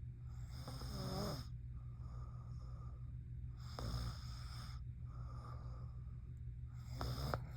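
A sleeping young woman snoring: three snoring breaths about three seconds apart, the first the longest, over a steady low hum.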